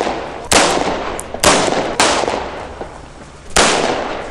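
Pistol shots, four sharp reports at uneven intervals, each ringing out in a long echoing decay.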